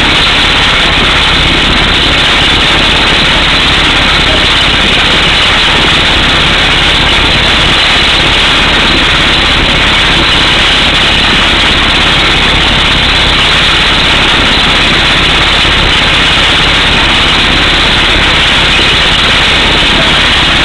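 Truck-mounted air hammer drilling an 18-inch hole through solid rock, with compressed air blowing the rock dust out of the hole. Loud and steady, without a break.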